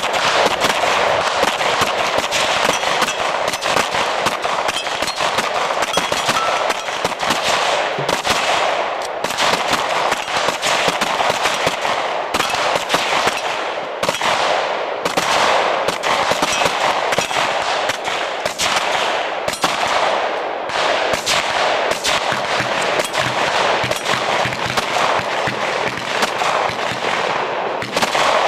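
Pistols fired rapidly by several shooters at once, the shots overlapping into a near-continuous stream of gunfire.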